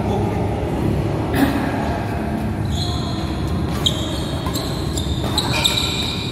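Badminton doubles rally on an indoor court: sneakers squeak sharply and repeatedly on the court floor from about three seconds in, with a few sharp racket strikes on the shuttlecock.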